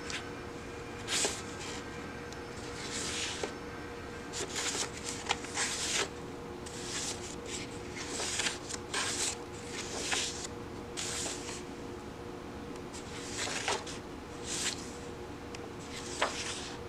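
Paper pages of a softcover, perfect-bound book being turned by hand. It is a string of soft, irregular swishes and rustles, roughly one every second or two, over a faint steady hum.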